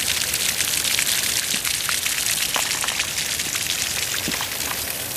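Lawn irrigation sprinklers spraying, a steady hiss of water spattering on wet ground and plants. They are running while it drizzles, which the owner blames on an unfixed rain sensor on the sprinkler pump.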